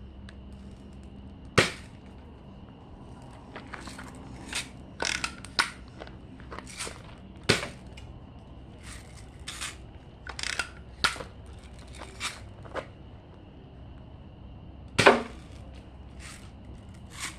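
BB gun firing and being handled: three louder, sharp snaps about one and a half, seven and a half and fifteen seconds in, the last the loudest, with many lighter clicks and knocks between them.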